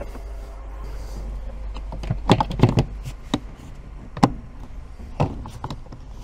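Hard plastic storage box lid being set in place and pressed shut over a coiled hose: a series of sharp plastic knocks and clunks from about two seconds in, the loudest near the start of the run, over a low steady rumble.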